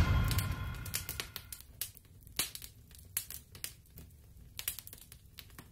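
Tail of a deep intro boom fading out over about the first second, followed by sparse, faint clicks and crackles from the intro's sound effect.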